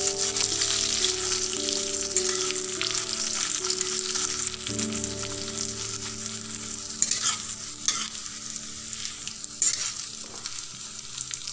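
Soaked basmati rice sizzling as it fries in ghee in a brass kadhai over a low flame, stirred with a metal spatula. The spatula scrapes and taps against the pan a few times in the second half.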